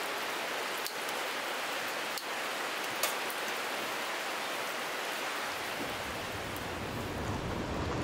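Steady rain hiss with a few sharp ticks of drops; a deeper rumbling layer joins about five and a half seconds in.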